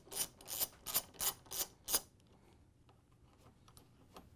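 Ratchet with a 3/8-inch socket clicking in quick back-and-forth strokes, about three a second, as it backs a hinge bolt out of a refrigerator door. The clicking stops about two seconds in, leaving only a few faint light clicks.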